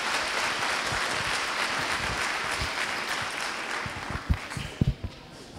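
Audience applauding, the clapping dying away over the last second or two, with a few soft thumps near the end.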